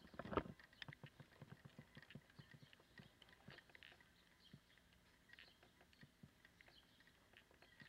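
Near silence, with faint irregular clicks and ticks scattered throughout, a few louder ones in the first half second.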